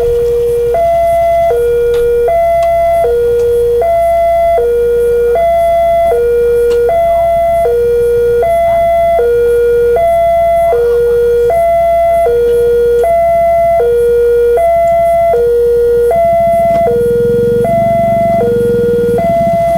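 Level-crossing warning alarm sounding its electronic two-tone signal, a higher and a lower tone alternating evenly, each held about two-thirds of a second, warning that a train is approaching. A low rumble rises under it in the last few seconds.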